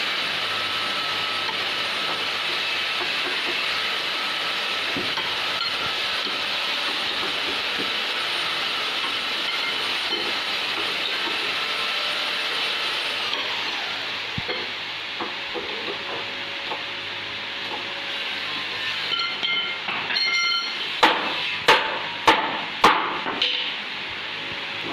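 Steady mechanical hiss with a faint whine, which stops about halfway and trails off in a falling tone. Near the end come a few short pitched squeaks, then about four sharp knocks in quick succession.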